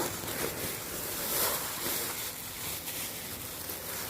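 Dry poultry feed pouring from a sack into a large basin: a steady rustling hiss of grains and the bag, swelling about a second and a half in.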